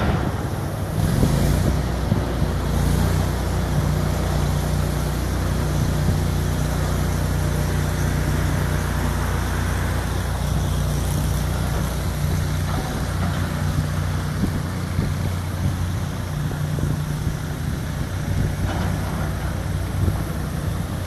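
A large engine running at a steady speed, with a constant low hum and wind noise on the microphone.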